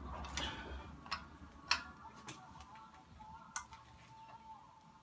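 A handful of sharp metallic clicks, about five at irregular spacing, from a torque wrench ratcheting on a cam sprocket bolt of a Chrysler 3.5 V6.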